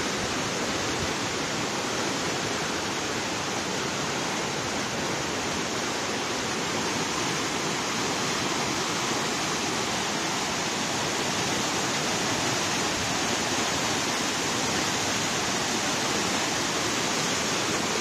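Floodwater from an overflowing reservoir rushing fast down a rocky stepped spillway in white-water cascades: a steady, unbroken rush of water.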